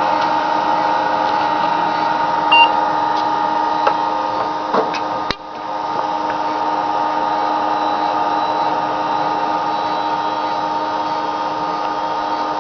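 Faulty Western Digital Protégé WD200 IDE hard drive making odd noises: a steady whine with several tones, broken by scattered clicks. About five seconds in, a sharp click comes and the sound drops away, then builds back up over about a second. This is the failure that leaves the computer unable to get past BIOS.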